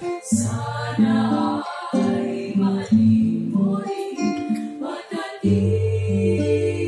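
A women's vocal ensemble singing a slow song in close harmony, holding long chords between short breaths, with a string instrument accompanying.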